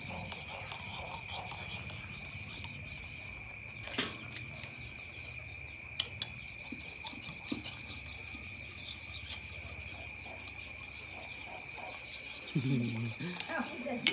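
A dao mèo knife blade being sharpened by hand on a large wet whetstone: a steady run of quick back-and-forth scraping strokes, with two sharp clicks about four and six seconds in.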